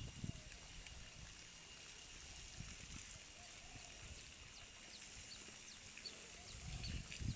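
Garden ambience: a steady high insect drone, with a run of short, falling bird chirps in the second half. Low rumbles at the start and the end.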